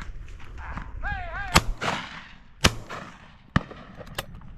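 Shotguns firing at driven pheasants: four shots about a second apart, the first two loudest and the last faint and farther off. A short rising-and-falling call comes just before the first shot.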